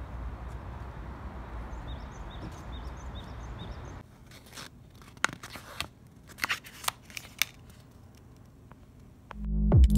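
Steady outdoor air hiss and rumble, with a small bird chirping a quick run of about seven short notes. Then a paper envelope is handled and opened, its flap and sheets crinkling and rustling in short, sharp bursts.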